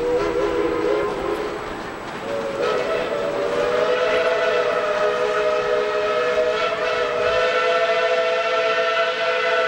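Narrow-gauge steam locomotive's whistle sounding a chord of several notes: a short blast, then a long held blast from about two seconds in.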